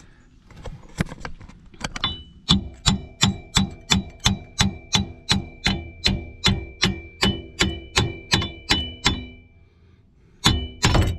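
A 3-pound sledge hammering a golf cart's steel axle shaft to drive it and its wheel bearing out of the bearing housing. A few scattered taps lead into a steady run of about three blows a second, each with a metallic ring. After a brief pause come two more blows near the end, as the axle comes free.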